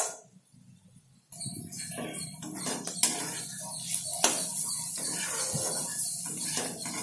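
Metal spatula scraping and clinking against a steel kadai as frying mushrooms are stirred. It starts about a second in, after a brief near-silent moment.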